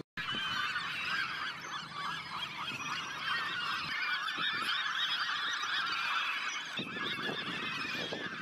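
A large flock of gulls calling, with many short cries overlapping at once.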